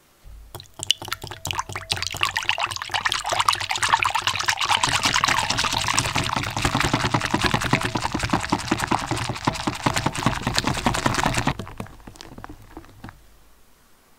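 Fresh cream being whipped by hand with a balloon whisk in a glass bowl: fast, splashy, rhythmic strokes with sharp clicks throughout. The strokes stop about eleven and a half seconds in, and a few softer strokes follow.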